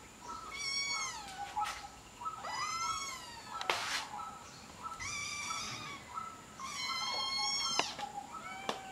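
Kitten meowing four times, high-pitched calls that fall in pitch, each about a second long. There is a short rustling burst near the middle.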